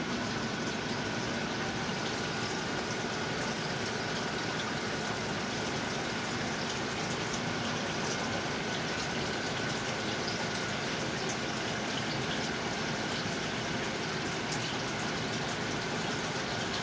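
Aquarium filtration running: a steady rush of moving water with a thin, steady high whine over it.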